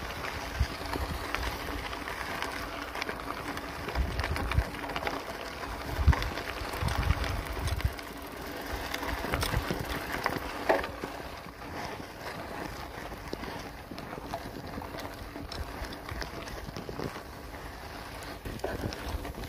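Bicycle being ridden: a steady rolling noise with frequent small rattles and clicks, and low rumbling gusts of wind on the microphone every few seconds.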